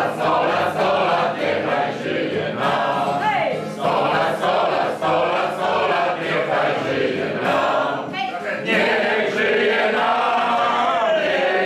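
A crowd of men and women singing together with their cups raised in a toast.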